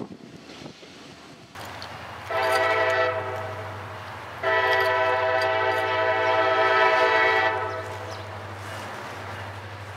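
Diesel freight locomotive's multi-chime air horn sounding two blasts, a short one about two seconds in and a long one of about three seconds from the middle, over the low rumble of the approaching locomotive.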